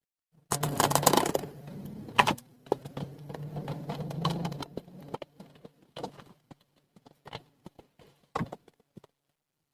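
Plastic toy pieces and packaging being handled during an unboxing: a burst of rustling and clattering in the first couple of seconds, then scattered light clicks and taps.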